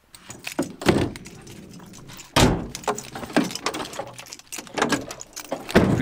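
Camper van doors being shut: a run of clicks and clunks, with louder thumps about a second in, about two and a half seconds in and near the end.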